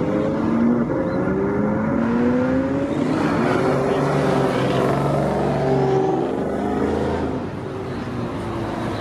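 High-performance car engines accelerating away, the engine note climbing in repeated rising sweeps. A deeper, steadier engine note joins about halfway through.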